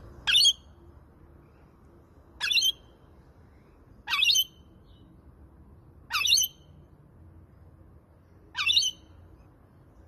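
Rainbow lorikeet giving five short, high-pitched squawks, one about every two seconds.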